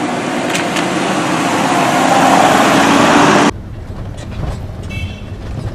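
Police SUV driving by on a wet road, engine and tyre hiss growing louder, then cutting off suddenly about three and a half seconds in to a quieter, low engine and road rumble inside the car's cabin.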